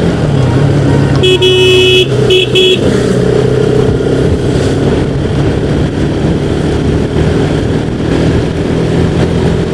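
Motorcycle engine running at a steady riding speed, with a vehicle horn honking twice, briefly, between about one and three seconds in.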